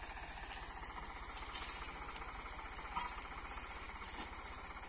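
Farm tractor engine idling steadily with an even low pulsing beat.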